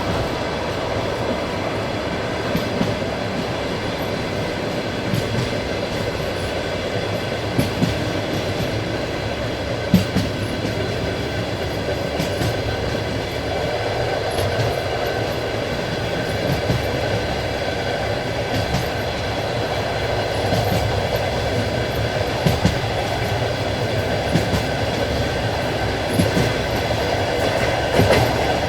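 Passenger train carriage running at speed: a steady rumble of wheels on rails, with a sharp knock every couple of seconds as the wheels cross rail joints.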